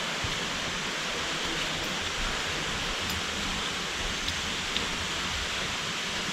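Running water from a forest stream or waterfall, a steady, even rush.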